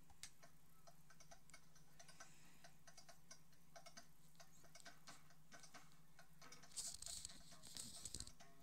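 Faint, irregular clicking and ticking, a few clicks a second, with a brief rustling hiss near the end.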